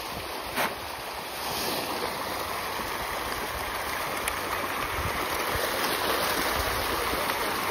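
A dense shoal of farmed fish thrashing and splashing at the pond surface in a feeding frenzy. It is a steady churning rush of water, a little louder after the first second and a half.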